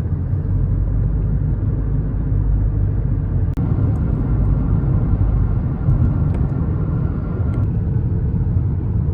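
Steady low rumble of road and engine noise heard from inside a moving car's cabin, with a few faint light clicks.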